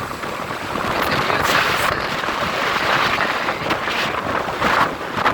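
Strong storm wind buffeting the microphone in a steady rumbling rush, with surf on the beach underneath and a few brief louder gusts.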